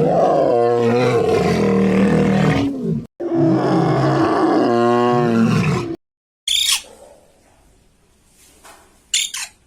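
A big cat roaring, two long roars one after the other, each about three seconds long. After a brief silence come two short, high calls from another animal, falling in pitch.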